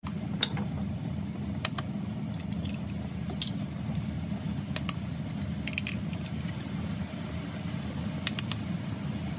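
Eggs frying in shallow oil in a nonstick pan: scattered sharp pops and crackles of spitting oil over a steady low hum.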